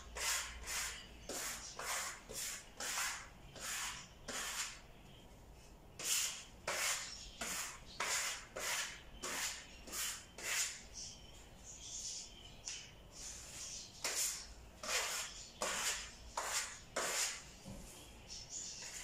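Repeated rubbing strokes of a hand tool against a wall, short even swishes about two a second, with a brief pause about five seconds in and a longer slower stretch past the middle before the strokes pick up again.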